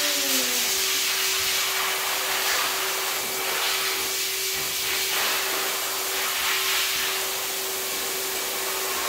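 Steady rushing hiss of a fan or blower running, with a constant hum underneath.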